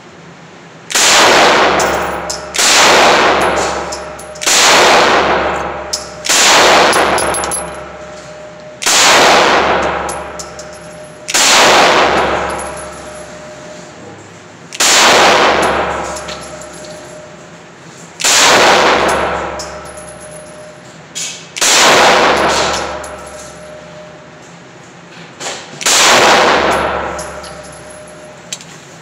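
About ten single shots from a semi-automatic pistol, fired slowly, two to four seconds apart. Each shot ends in a long, fading echo off the concrete-block walls of an indoor range.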